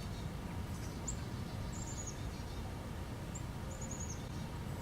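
A small bird calling in short, very high chirping runs, repeated several times, over a steady low outdoor rumble of river or wind.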